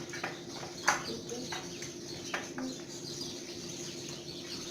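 A handful of short, sharp clinks and clicks, the loudest about a second in, over a steady low hum, with faint high chirps in the background.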